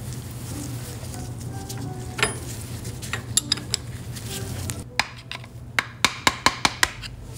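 Sharp metal clicks and clinks of hand tools on motorcycle suspension parts, a spanner and then a screwdriver, over a low steady hum. A few scattered clicks come in the first half, then a quick run of about six sharp clicks late on.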